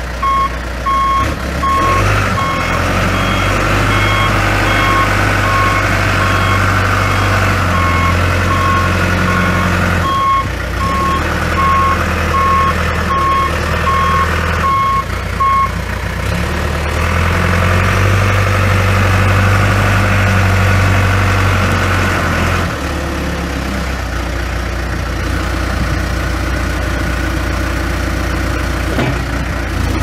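John Deere 410J backhoe's 4.5L turbo diesel engine running, with its backup alarm beeping at an even pace for about the first half, the sign that the machine is in reverse. The beeping then stops while the engine runs on, its speed rising and falling a few times.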